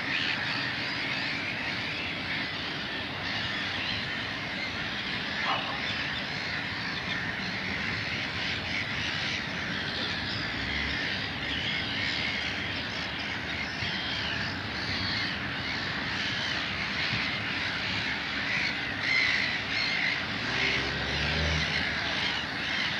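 A dense chorus of many birds calling over one another, including harsh crow-like calls. Near the end a low pitched sound briefly rises and falls beneath the birds.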